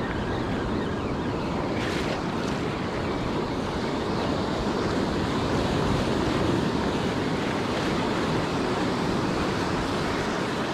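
Ocean surf breaking and washing up the beach, a steady rushing noise, with wind buffeting the microphone.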